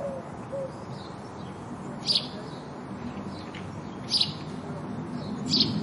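House sparrows chirping: three loud, short chirps roughly two seconds apart, with fainter chirps in between, over steady low background noise.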